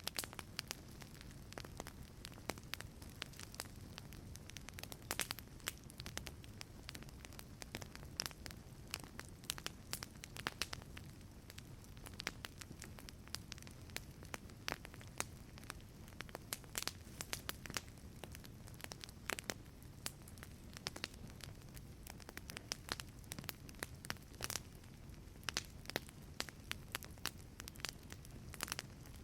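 Wood fire crackling in a fireplace: irregular pops and snaps over a steady low rumble of flames.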